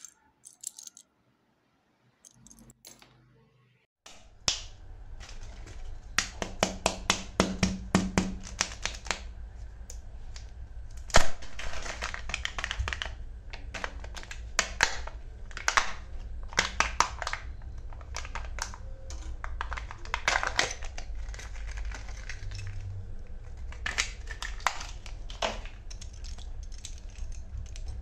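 After a few near-silent seconds, hands handle plastic Kinder Joy egg capsules and small plastic toy parts: rapid clicks, snaps and crinkling of plastic, over a low steady hum.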